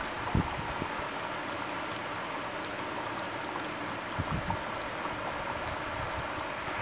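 Heavy rain falling steadily, with a few brief low thumps about half a second in and again around four seconds in.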